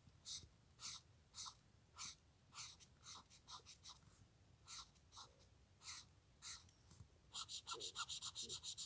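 Touch Twin alcohol marker nib rubbing across paper while colouring in a shape: short scratchy strokes, about two a second, then quickening into a rapid back-and-forth run near the end.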